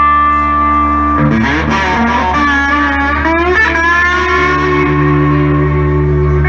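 Electric guitar played live through a concert PA: one held note, then about a second in a run of bending, sliding notes over a steady low drone.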